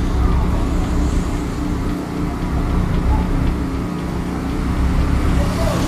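Street traffic noise: a steady low engine rumble from a motor vehicle on the road, which holds an even hum through the whole stretch.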